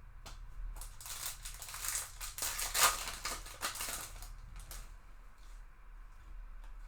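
Foil trading-card pack wrapper being torn open and crinkled, a dense stretch of rustling and crackling for about three seconds starting about a second in, with a few light clicks around it.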